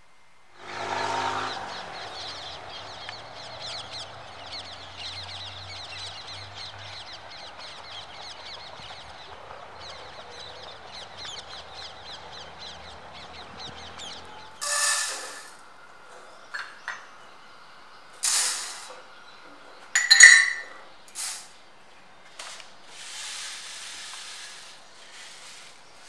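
Outdoor ambience of small birds chirping over a low steady hum, which cuts off about halfway through. Then comes a scattered run of sharp kitchen clinks and knocks of utensils on pans, the loudest a ringing clink.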